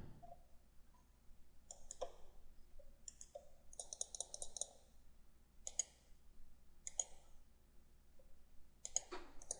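Faint computer mouse clicks: single clicks a second or so apart, with a quick run of several clicks near the middle.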